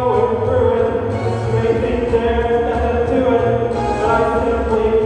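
Music with long held notes over a steady low bass line.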